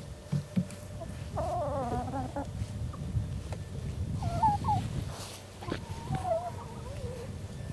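Backyard laying hens making gentle clucking calls: a drawn-out wavering call about a second and a half in, then several short calls, over a low rumbling background.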